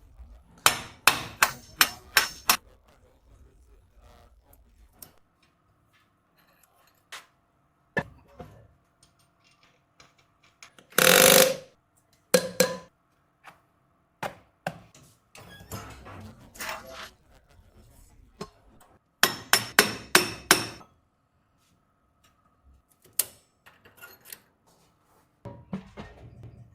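Metal tools knocking and clinking on e-rickshaw gearbox parts during a gearbox change: groups of quick hammer-like strikes about a second in and again about twenty seconds in, single knocks between them, and a louder noise lasting about a second near the middle.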